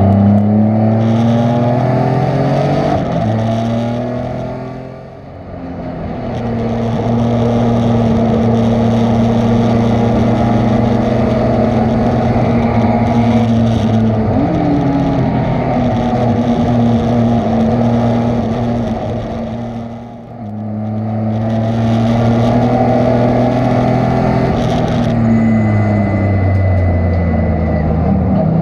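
Race car engine heard from inside the cockpit at racing speed: the revs drop and the sound fades sharply twice as the car lifts off, then climb again under power and hold steady through long stretches of full throttle. Near the end the revs fall again as the car slows into a corner.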